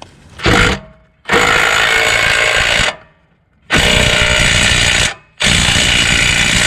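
Cordless impact wrench hammering as it tightens an engine mounting bolt on a golf cart's underside. It comes in four bursts: a short blip, then three runs of about a second and a half each.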